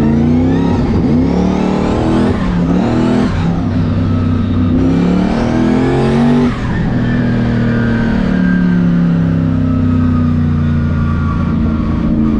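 Turbocharged Crown Victoria drag car accelerating hard down the track. The engine pitch climbs and drops back with two quick upshifts in the first few seconds, then pulls in one long rise until the throttle is lifted about six and a half seconds in. After that the engine note falls slowly as the car coasts.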